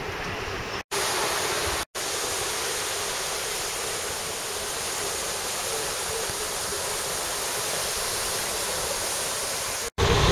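Steady rushing hiss of wind and road noise inside a moving open-sided bus, with no clear engine note. The sound drops out briefly twice about a second in, and once more near the end.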